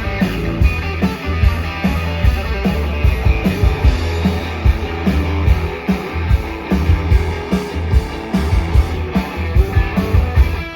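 Live rock band playing an instrumental passage: electric guitars over a steady drum beat and bass, with no singing.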